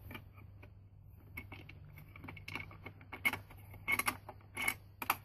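Plastic battery cover being handled and fitted back onto the underside of a Neato XV robot vacuum: a run of small clicks and rattles, with a few sharper clacks in the second half.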